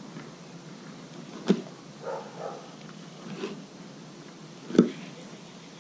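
A fillet knife works through a gafftopsail catfish on a plastic cooler lid. Two sharp knocks come about three seconds apart, the second the louder, with a few short muffled sounds in between.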